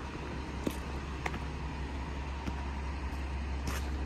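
Steady low outdoor rumble with a few light clicks scattered through it.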